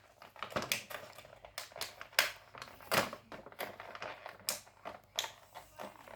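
Plastic packaging of a toy makeup set being handled and pried at to open it: irregular clicks, snaps and crinkles.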